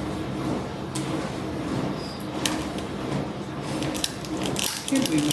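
Sharp clicks of a long-reach utility lighter's trigger as it is worked to light cake candles, a few singly and then a quicker run near the end, over a steady low hum.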